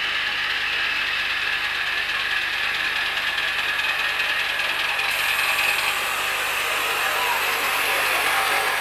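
Miniature live-steam locomotive running with a passenger load, a steady rapid mechanical clatter that grows slightly louder as it comes close. A high hiss joins about halfway through.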